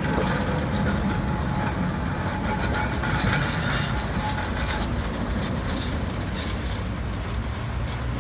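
1903 Sydney tramway freight car running past on the rails, its traction motors and steel wheels heard together. A faint steady whine dies away about halfway through, with scattered light clicks from the wheels and running gear.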